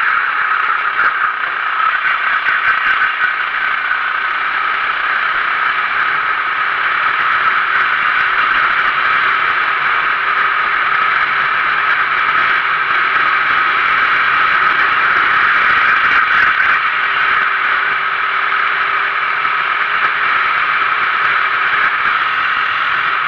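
Onboard sound of a Sodi RT8 rental kart's 390cc single-cylinder four-stroke engine running hard at racing speed, with rattle and wind noise on the kart-mounted camera; steady throughout, swelling slightly on the straight.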